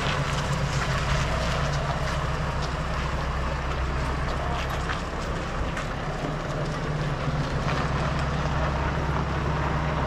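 Farm tractor's diesel engine running steadily as it tows a covered passenger trailer away, a low, even hum.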